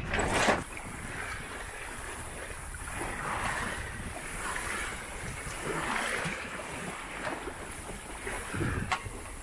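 Bow wave of a small sailboat's hull rushing and splashing along the side as it sails, with wind on the microphone. The hiss of water swells and eases every couple of seconds, and there is a short, louder burst about half a second in.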